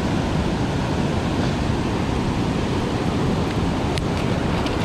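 Steady rushing of water pouring through a flooded spillway, with a couple of faint clicks about four seconds in.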